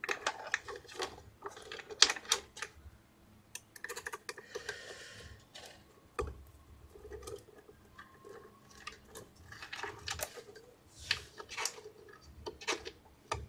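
Irregular small metallic clicks and ticks as a hex key is fitted into and turned in small screws, loosening the screws of the Z-axis stepper motor mount and flex coupling, with a short scrape about five seconds in.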